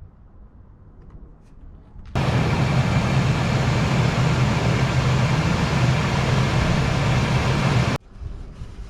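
Ford E350 van's 5.4-litre V8 running steadily with a low hum under a wide hiss. It cuts in abruptly about two seconds in and cuts off abruptly about a second before the end.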